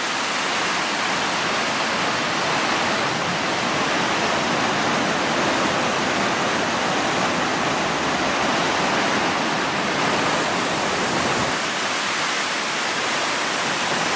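Steady rushing roar of a waterfall, with the drone of highway traffic passing overhead mixed in; the low rumble fills out through the middle and eases near the end.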